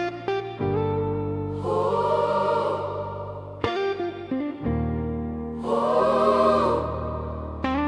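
Instrumental section of a soft pop song: sustained chords over a bass line, with swelling wordless choir-like vocals and plucked guitar notes.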